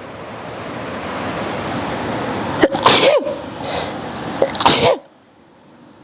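A steady rushing noise builds, then a person sneezes twice, about two seconds apart, with sharp voiced bursts. The sound drops away suddenly just after the second sneeze.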